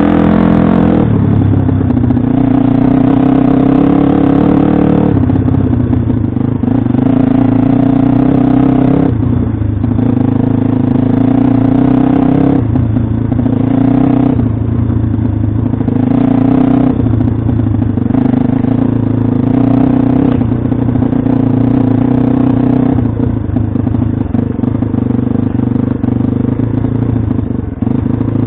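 Pit bike's single-cylinder engine running hard while riding, the throttle opened and eased off every few seconds so the pitch rises and drops.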